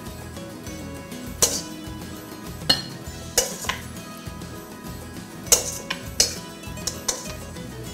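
Serving utensil clinking and scraping against a stainless steel mixing bowl as salad is lifted out onto a plate: about seven sharp, irregularly spaced clinks.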